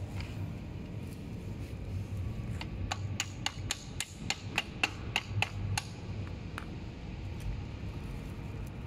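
Small hammer tapping on the metal parts of an electric scooter's folding hinge: about a dozen quick, sharp taps at about four a second, over roughly three seconds in the middle, each with a short metallic ring.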